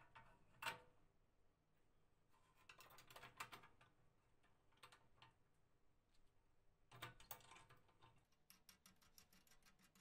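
Faint clicks and taps of a small two-pin switch being handled against the sheet-metal heater housing and pushed into its cutout, ending in a quick run of light ticks.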